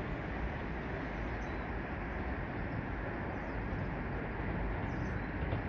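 Steady outdoor background noise: an even hiss with a low, unsteady rumble underneath and no distinct events.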